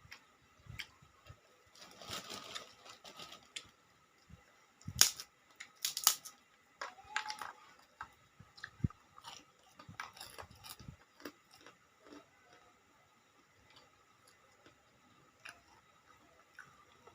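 Close-miked eating: chewing with scattered sharp mouth clicks and a few louder crunchy bites.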